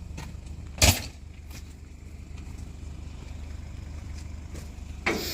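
Vehicle engine idling steadily, with a sharp loud knock about a second in and another knock near the end.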